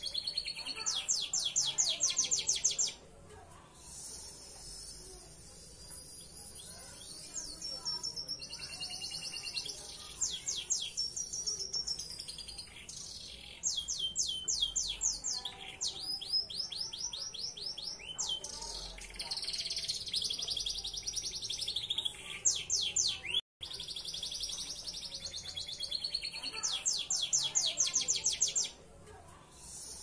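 Belgian Bossu canary singing: fast trills of rapidly repeated falling notes alternate with long, high held notes, phrase after phrase with short pauses between them.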